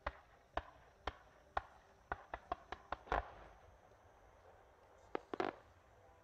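Fireworks going off in a string of sharp bangs: four about half a second apart, then a quicker run of about six, then three more close together near the end.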